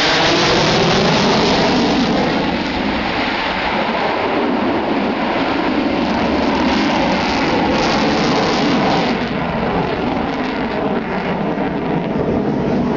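Sukhoi Su-27 fighter's twin jet engines roaring in aerobatic flight overhead: a loud, steady rush of jet noise with a slowly sweeping tone, easing a little as the jet pulls away.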